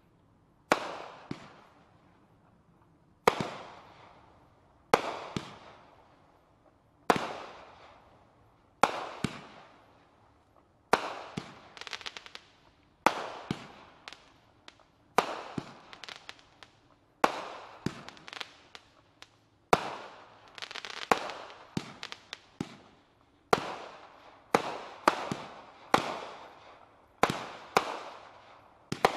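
Royal Party RP61 Amazing, a 61-shot 30 mm-bore firework cake, firing shot after shot. A sharp bang comes every one to two seconds, each fading away over about a second, and the shots come closer together near the end. Several of the bursts break into a spell of crackling.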